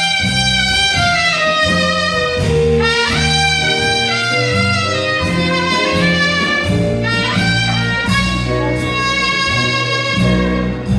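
Small live jazz band playing, a trumpet carrying the lead line over upright bass, drums and saxophone. The horn scoops up into several notes.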